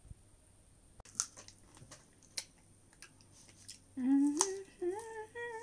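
Faint clicks and wet mouth noises of a fresh strawberry being bitten and chewed. About four seconds in, a woman's voice hums an appreciative 'mmm' in three short notes, each rising in pitch.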